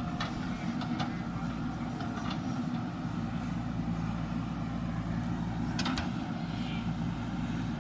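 Diesel engine of heavy machinery running steadily, with a few short knocks over it.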